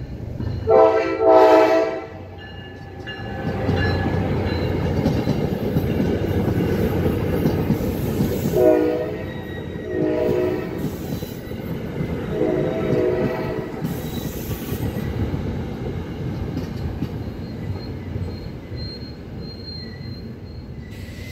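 An NJ Transit ALP-45DP locomotive sounds its horn in a loud blast about a second in, then its train of passenger coaches rumbles steadily past over the level crossing. Three more horn blasts come between about 9 and 13 seconds in, and the rumble slowly fades as the last car goes by.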